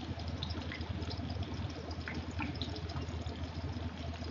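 Hot oil in a small tadka pan sizzling around mustard seeds, curry leaves and green chillies, the gas just turned off, with scattered small pops and crackles. A low steady hum runs underneath.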